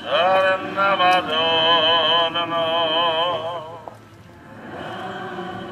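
A solo voice singing a church hymn in long held notes with a wavering vibrato. The phrase ends about four seconds in, and fainter singing follows near the end.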